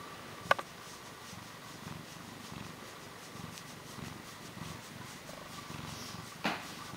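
Domestic cat purring steadily while being stroked under the chin, heard up close. Two sharp clicks cut in, one about half a second in and a softer one near the end.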